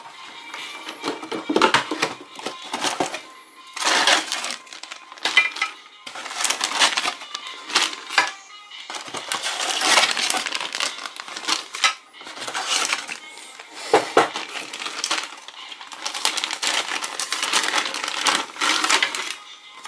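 Plastic toy packets crinkling and a cardboard Happy Meal box rustling as they are opened and handled, in irregular bursts, over background music.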